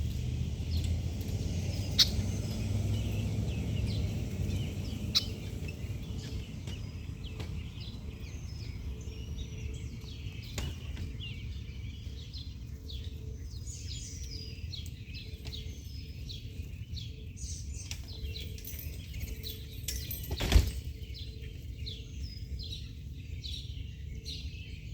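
Many small birds chirping and twittering, several at once, over a steady low rumble. A few sharp clicks or knocks cut in, the loudest about three-quarters of the way through.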